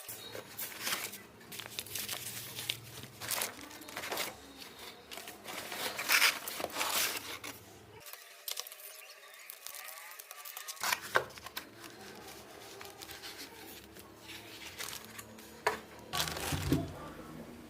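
Trimmer packaging being unboxed: irregular crinkling, rustling and tearing of plastic and cardboard, with scattered sharp crackles.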